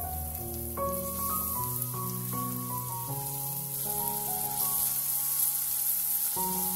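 Chopped onion sizzling in hot vegetable oil: a steady high hiss, a little stronger in the second half, under light background music.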